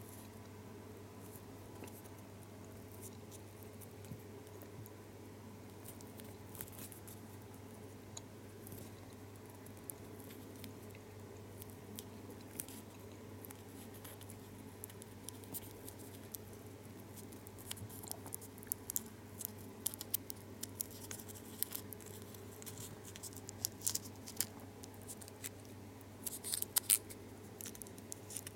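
Small foil gum wrapper crinkling and crackling between the fingers as it is creased and folded, in scattered small ticks that grow busier in the second half, with a cluster of louder crinkles near the end. A steady low hum sits underneath.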